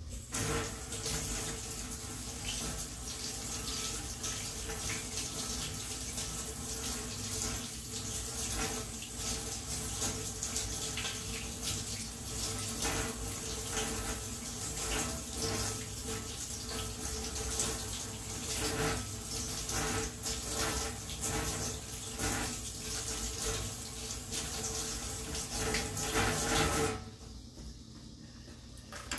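Water running steadily from a tap, shut off abruptly near the end.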